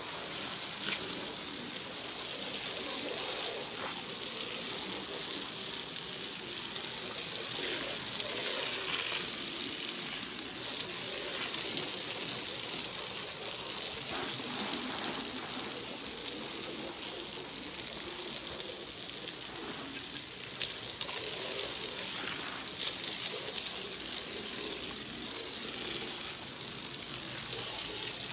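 Garden hose spraying water onto wooden deck boards, rinsing off soap and loosened pollen. It makes a steady, even hiss and splash that runs without a break.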